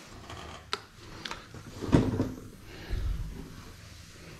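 Handling noises at a workbench: a few light clicks, a louder knock about two seconds in and a short low rumble as items are moved and set down between sanding the inner tube and wiping it with a cloth.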